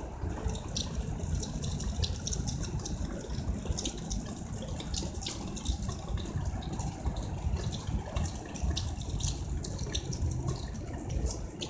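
Steady rain with a rush of running water, and scattered drops tapping sharply.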